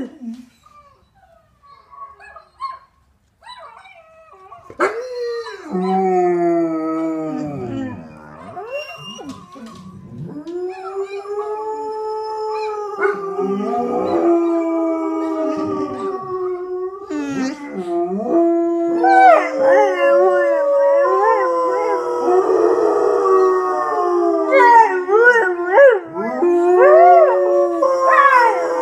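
A pack of pet dogs, including a basset hound and a Dalmatian, howling together. After a few seconds of near quiet, long drawn-out howls begin about five seconds in, and in the second half several voices overlap at different pitches.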